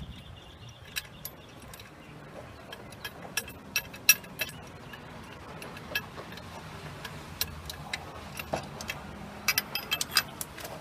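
Scattered metallic clicks and clinks of hand tools and loosened parts on an Isuzu 4HE1 diesel engine as the heater hose pipe is unbolted, with a quick run of clicks near the end.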